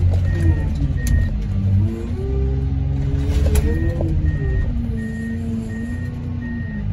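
Heavy diesel machinery working scrap cars, its engine pitch rising and falling under load, with a few sharp metal clanks. A backup alarm beeps steadily through the second half.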